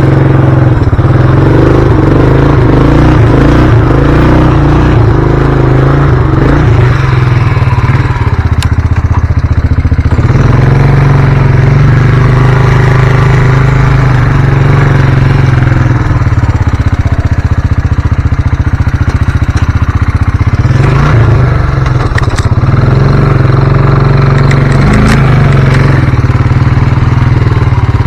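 Engine running close to the microphone, a steady loud drone that changes pitch a few times as it is revved up and eased off.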